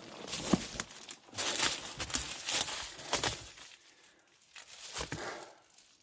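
Footsteps crunching and rustling through dry forest-floor litter, irregular and busy for the first few seconds, then one more crunch about five seconds in.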